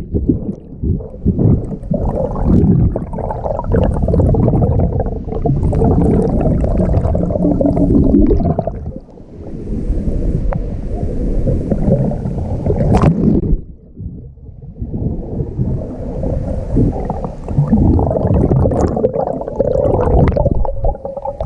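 Muffled underwater churning of water and bubbles, heard through a submerged camera, with deep rumbling and gurgling. The sound thins out briefly twice, about 9 and 14 seconds in.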